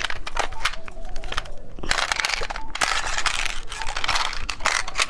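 Plastic candy packaging being crinkled and torn open by hand: dense bursts of rustling with sharp crackles, loudest in the second half.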